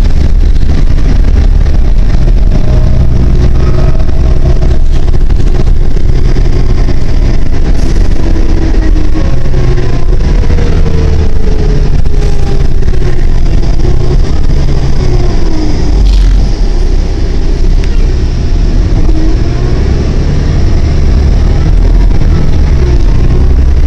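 Interior noise of a New Flyer D40LF diesel city bus under way: steady engine and drivetrain rumble with road noise, and a whine that glides up and down in pitch several times as the bus speeds up and slows.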